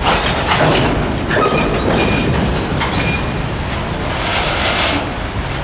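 Freight train boxcars rolling past close by, steel wheels clattering over the rail joints, with a few brief high wheel squeals around the middle.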